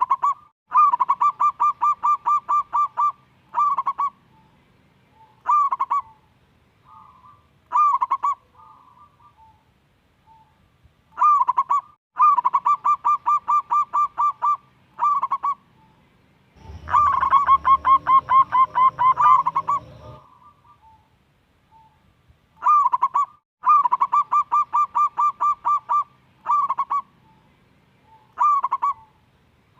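Zebra dove (perkutut) singing: repeated bouts of quick staccato coos, each run lasting a few seconds, with single coo notes between them. A low rumble runs under one bout about two-thirds of the way in.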